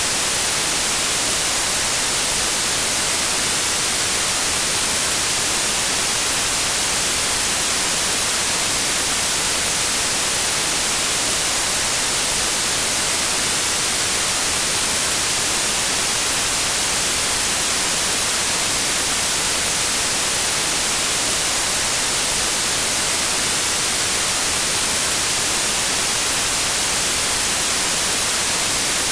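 Steady white noise: an even, unchanging hiss, brightest in the high end, for sleep or relaxation.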